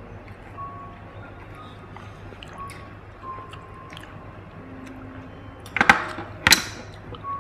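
Quiet eating sounds of rice noodles and chicken feet: slurping and chewing, with two loud, sharp clicks about half a second apart near six seconds in.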